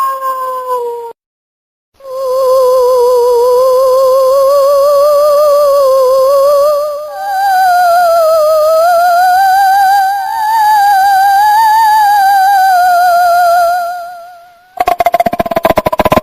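Ghost-sound effect: a wavering, wailing tone with a fast, even vibrato that slides slowly up and down in pitch. It breaks off for a moment about a second in and steps higher about seven seconds in. It fades out near the end, where a buzzy, rapidly pulsing tone begins.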